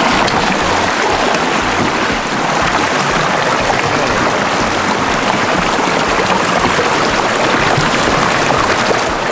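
Fast, shallow river current rushing steadily over rocks close around the canoe, with the splashing of someone wading through the current beside the boat.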